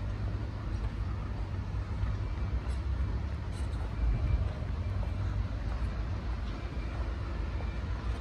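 Steady low rumble of heavy diesel machinery, excavators working on flood debris, with a few faint ticks.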